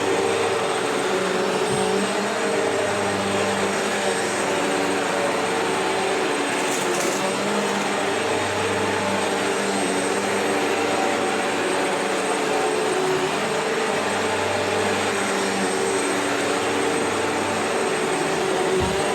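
Vacuum cleaner running steadily over old, worn carpet, a constant rushing motor noise with a low hum that swells and fades every few seconds.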